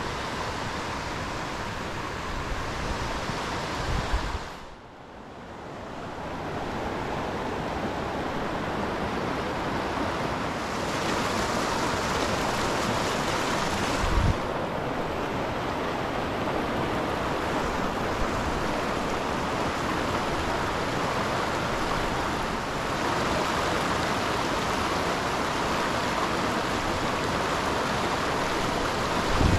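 Whitewater of a rocky mountain stream rushing over rocks, a steady noise of water that drops away for a moment about five seconds in and builds back up. A couple of low thumps stand out, one just before the drop and one about fourteen seconds in.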